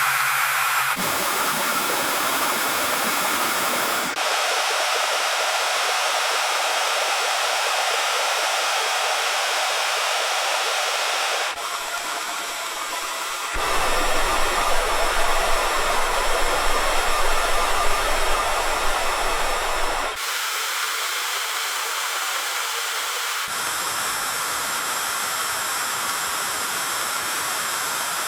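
Farm water pump running with a steady rush and hiss of water, in looped sections that switch abruptly several times. The middle stretch is louder, with a low rumble underneath.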